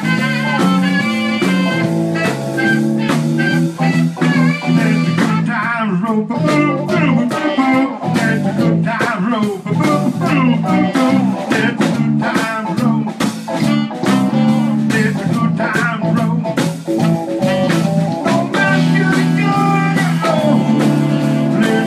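Live blues band playing an instrumental stretch with electric guitar and drum kit over a repeating low riff; a lead line bends and wavers in pitch through the middle.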